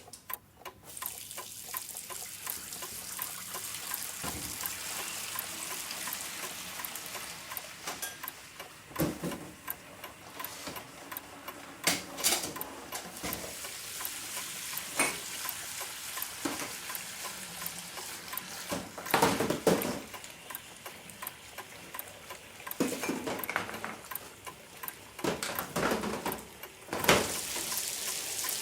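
Egg frying in a pan: a steady sizzle sets in about half a second in, with scattered knocks and clatters of kitchen utensils.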